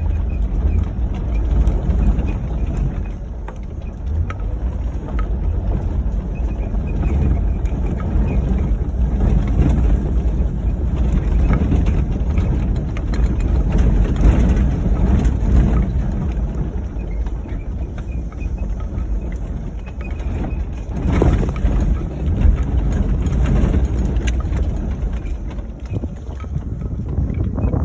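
Ford Crown Victoria driven off-road: a continuous low rumble of engine and driving noise that swells and eases.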